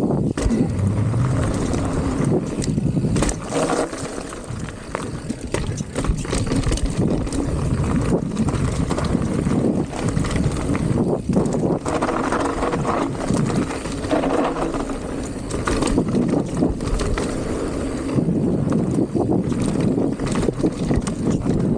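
Mountain bike riding down a dirt trail: wind buffeting the action camera's microphone over the rumble of the tyres, with frequent knocks and rattles from the bike over rough ground.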